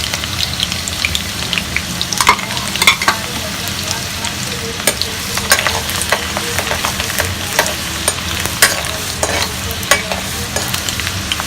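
Chopped garlic frying in hot oil in a kadhai: a steady sizzle with frequent sharp crackling pops as it turns golden. A steady low hum runs underneath.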